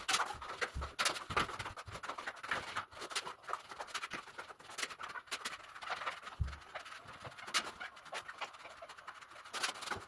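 A tool scraping and tapping on ceramic tile as grout is worked into the joints, with irregular short scratches and clicks.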